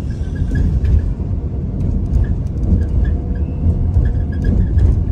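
Loud, steady low rumble with a noisy wash over it.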